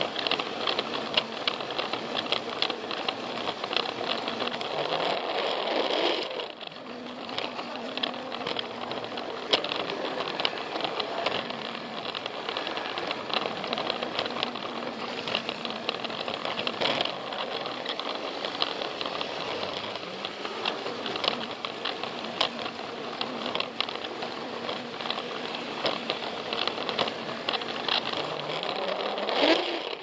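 Battery-powered Plarail toy train running along plastic track: the small motor and gearbox whir steadily while the wheels click over the track joints. The motor's pitch rises briefly about five seconds in and again near the end.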